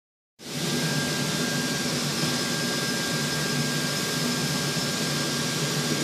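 Steady drone of power-cable production machinery in a factory hall: a low hum with thin, steady high-pitched whines over it, cutting in abruptly just under half a second in.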